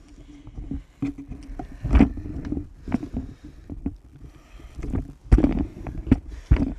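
Handling noise right on a phone's microphone: cloth rubbing and rustling as the phone is moved about, with several sharp knocks. The loudest knocks come about two seconds in, a little past five seconds in, and near the end.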